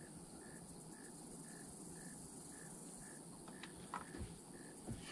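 Cricket chirping faintly and evenly, about two chirps a second. A few light clicks and knocks come near the end.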